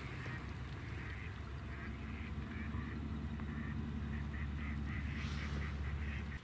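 A flock of mallards quacking on the water, many short repeated calls building up over the first couple of seconds, over a steady low hum.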